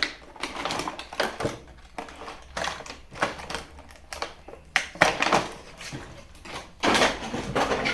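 A toy being lifted out of its box: plastic packaging rustling, with irregular clicks and clatters of hard plastic parts. The loudest bursts come about five seconds in and near the end.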